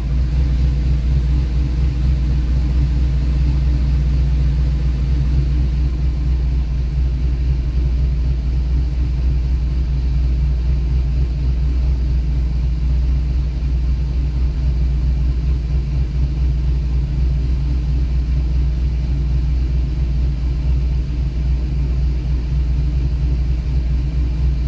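GM 6.0-litre LS V8 freshly started and idling steadily, with an even low rumble that holds at one pitch.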